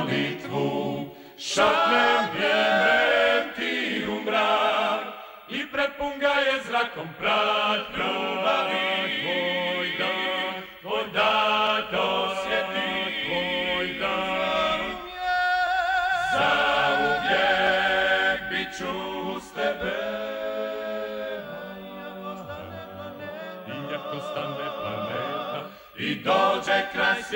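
Male Dalmatian klapa group singing a cappella in close harmony, the voices held with vibrato, with short breaks between phrases about a second in, around five seconds in and near the end.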